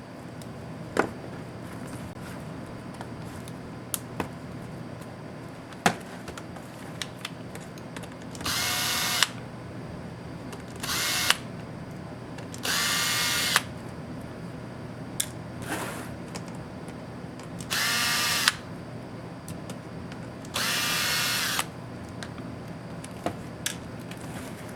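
Small electric screwdriver whirring in five short bursts, each under a second, backing screws out of a laptop. Sharp clicks and taps of small parts and tools fall between the bursts.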